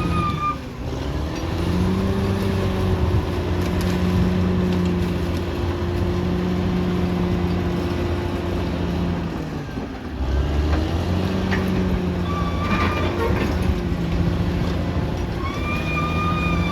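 Caterpillar D6R XL bulldozer's diesel engine running under load, its pitch and level dipping about a second in and again about ten seconds in. A brief high squeal with some clanks comes about twelve to thirteen seconds in.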